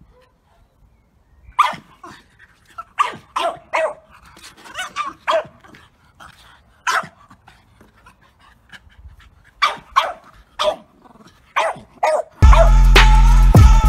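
A blue-grey bull-breed puppy barking in short, sharp, irregular barks, about a dozen in all, excited play barks as it paws at and circles a ring-shaped toy. Loud music comes in near the end.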